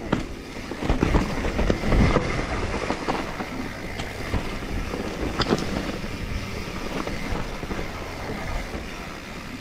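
YT mountain bike riding fast down a rocky, rooty dirt trail: tyres running over loose stones and roots with the bike rattling throughout, and several sharp knocks from rock and root hits.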